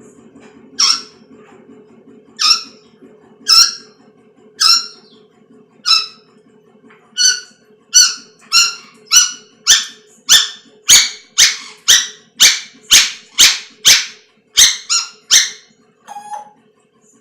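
A pet animal gives a run of about twenty short, sharp, high calls. They come about a second apart at first, then quicken to about two a second, and end with one softer, lower call.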